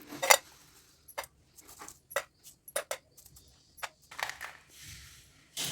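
Kitchen utensils clinking and clicking as they are handled: an irregular series of about a dozen sharp metallic clicks, the first the loudest and ringing briefly, with a soft rustle near the end.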